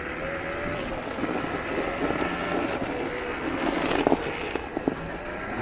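Electric minibike's motor whining as it rides through snow, its pitch drifting slightly up and down with the throttle, over a steady rush of noise. A few short knocks come about four to five seconds in.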